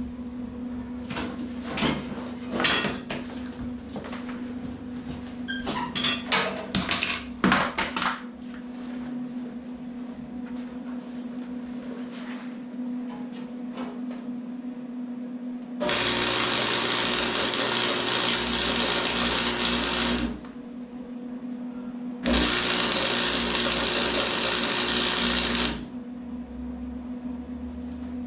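Metal clanks and knocks for the first eight seconds or so, then two welding runs of about four seconds each with a short break between. Each run is a loud, even crackling hiss, the arc laying tack welds or a bead on the steel battery box.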